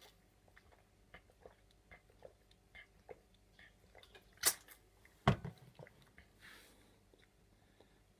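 A man drinking from a plastic bottle: small swallowing and mouth clicks, a sharp click about four and a half seconds in, then a louder thump, and a soft breathy rush near the end.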